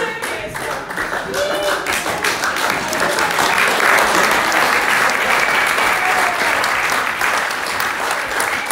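A roomful of people applauding, the clapping swelling to its fullest about halfway through, with a few voices over it.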